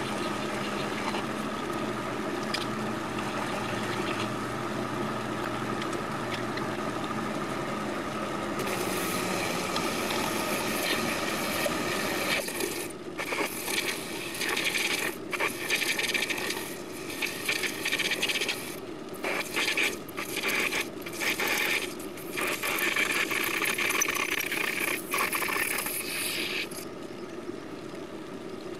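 TV-16 benchtop metal lathe running steadily while a drill cuts into a brass workpiece. From about a third of the way in, the sound turns to a hand-held tool scraping the spinning brass, in short irregular strokes with brief breaks.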